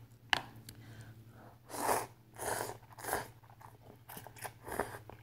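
A person slurping ramen noodles in three short pulls around the middle, with wet mouth clicks and chewing close to the microphone.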